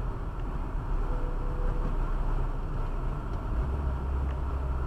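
Car driving at low speed, heard from inside the cabin: a steady low rumble of engine and tyre road noise.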